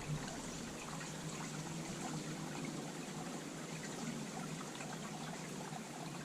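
Honeybees buzzing around an opened top-bar hive: a steady low hum under an even hiss, with a single bee's wavering buzz passing about two seconds in.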